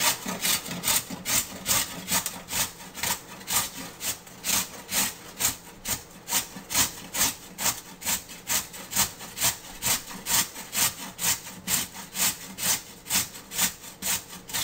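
A raw carrot being grated on a stainless-steel hand grater: a steady rhythm of rasping strokes, about two and a half a second, which stops at the end.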